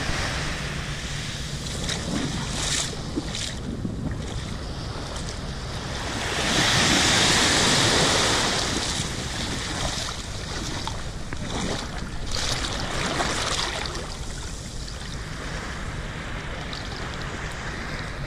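Shallow sea water washing and lapping right at the microphone, with wind noise on the microphone. A louder rush of water comes about six seconds in and lasts a few seconds.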